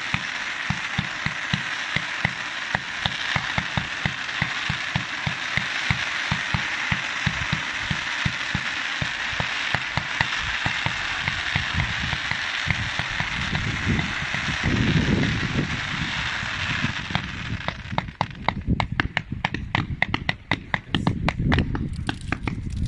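Fireworks: a rapid-fire barrage with about four launch thumps a second over a dense hiss and crackle, with deeper booms about two thirds of the way in. Near the end the hiss stops, leaving fast crackling.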